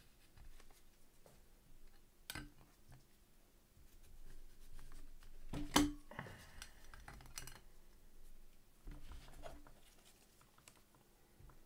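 Trading cards being scooped up and slid across a tabletop by gloved hands: light rustling with a few sharp taps and clicks, the loudest about six seconds in.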